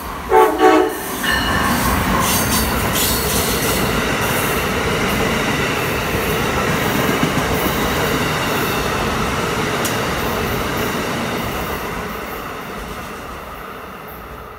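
Amtrak electric train, an ACS-64 locomotive hauling stainless passenger coaches, passing through at speed. A brief horn blast sounds just after the start, then the loud rush of wheels on rail as the cars go by, fading near the end as the train recedes.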